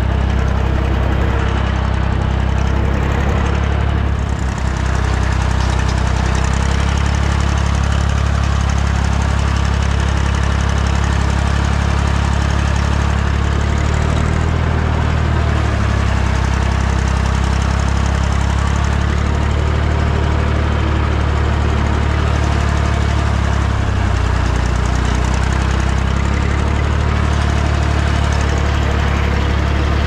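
Ursus C-360 tractor's diesel engine running steadily as the tractor drives across a field pulling a mounted sprayer, with a loud, even engine drone throughout.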